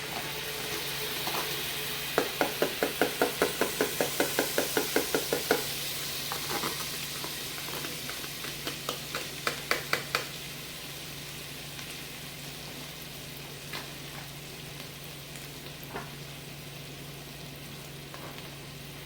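Butter sizzling in a non-stick Copper Chef pot, with a quick run of utensil taps against the pot, about four or five a second, from about two seconds in, and a few more taps near the ten-second mark.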